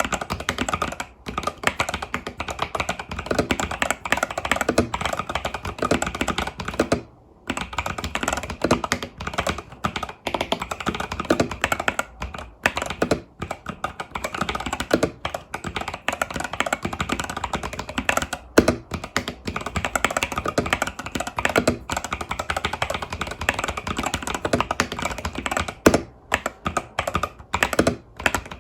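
Steady fast typing on an Epomaker TH80 Pro mechanical keyboard with Epomaker Budgerigar tactile switches and stock keycaps, a dense run of key clacks with a short pause about seven seconds in.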